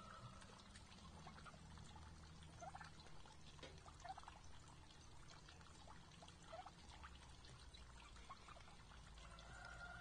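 Wild turkeys pecking and scratching at scattered seed and feeders: faint, irregular ticks and clicks, with a few soft short calls.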